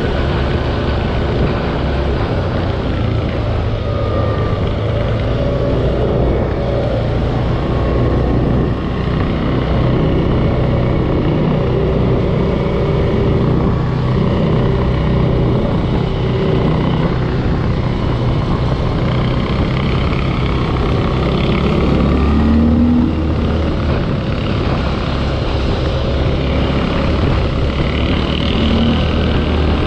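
Linhai 500 Promax ATV's single-cylinder engine running steadily under way, its pitch shifting a little as the throttle changes, with a steady rush of noise over it.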